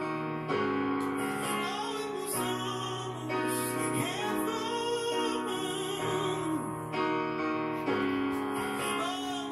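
A man singing high, wordless vocal runs that glide up and down over sustained piano chords, in a slow gospel-tinged ballad.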